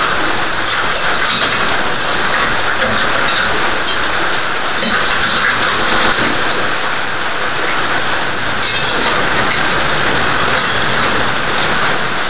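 Steady heavy rain, a constant even hiss, with a few faint clicks.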